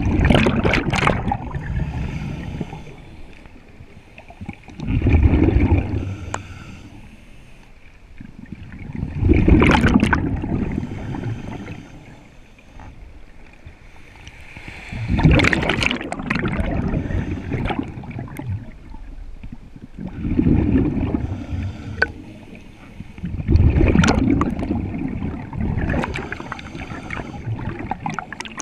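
Scuba diver breathing through a regulator underwater: exhaled bubbles rumble and gurgle in regular surges every four to five seconds, with a hiss from the regulator between them, heard muffled through the camera's underwater housing.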